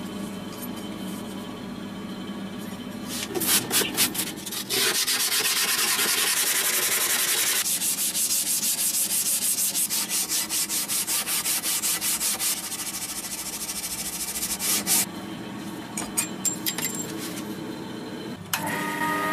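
Hand-sanding the steel blade of an antique cleaver clamped in a vise: quick, even back-and-forth rubbing strokes that run for about ten seconds, with a few slower strokes before and after. A machine starts running just before the end.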